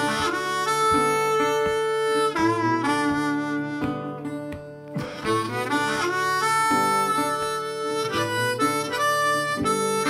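Background music with a melody of long held notes over a guitar accompaniment.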